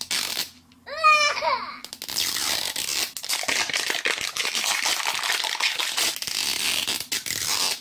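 A short voice-like sound with rising pitch about a second in, then steady rustling and crinkling of plastic packaging as a small wrapped miniature toy is handled and opened.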